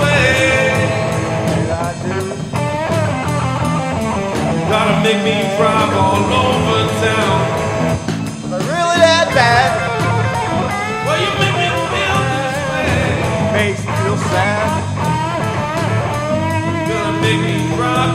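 Rock band music: electric guitar over bass and drums, with a steady beat.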